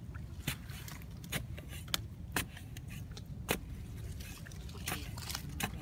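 Steady low wind rumble on the microphone, with about half a dozen sharp clicks and knocks at irregular times.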